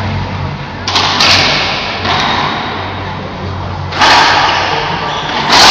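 Racquetball cracks echoing in an enclosed court: the hollow rubber ball smacked off racquet and walls, two hits close together about a second in, another about four seconds in and the loudest near the end, each leaving a long ringing echo.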